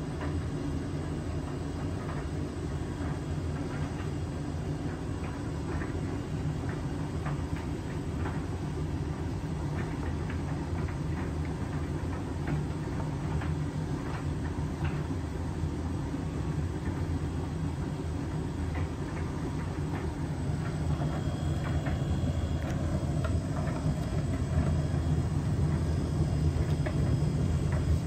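Hotpoint Active Care heat pump tumble dryer running: a steady low hum from the drum motor and heat pump, with scattered light knocks of clothes tumbling in the drum. It grows a little louder over the last few seconds.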